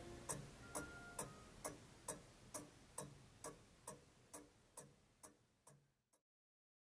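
Mechanical clock ticking steadily, about two ticks a second, fading out gradually until the last tick about six seconds in.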